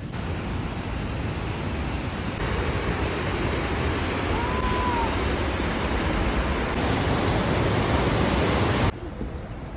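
Flooded Potomac River rushing in a steady, even roar of fast water that grows slowly louder, then drops abruptly to a quieter rush near the end. A brief faint whistle-like tone rises and falls about halfway through.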